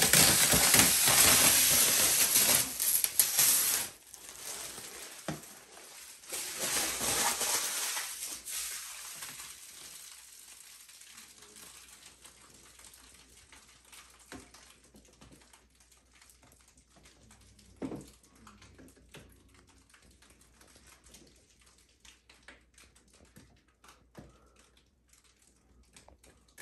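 Protective plastic film being peeled off a new bidet seat's lid, crinkling loudly for about four seconds and again briefly a couple of seconds later. After that only faint clicks and rustles, with one short knock about two-thirds of the way through.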